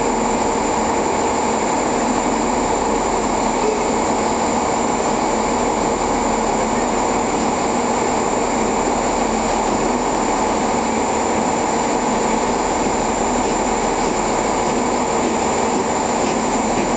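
Steam locomotive drifting slowly in toward the station: a steady hiss with a faint hum, with no separate chuffs standing out.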